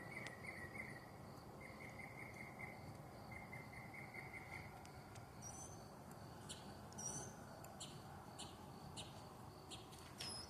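A bird calling in the dark, faint: a quick run of chirps on one pitch for the first few seconds, then a switch to sharper, higher notes with short upward whistles, about two a second. A steady insect trill runs underneath.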